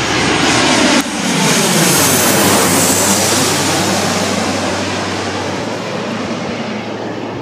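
Twin-engine jet airliner passing low overhead on its landing approach: loud, rushing engine noise that swells as it comes over and slowly fades as it flies on toward the runway. An abrupt break about a second in joins two different flyovers.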